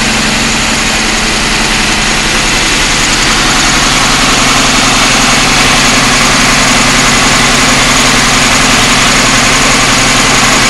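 Car engine idling steadily, heard close up in the open engine bay, just after start-up while the idle settles. The exhaust is unrestricted: back pressure at idle reads under 1 psi, within spec.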